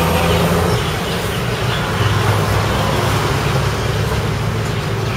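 Steady road traffic noise: a low continuous hum with a hiss of passing vehicles over it.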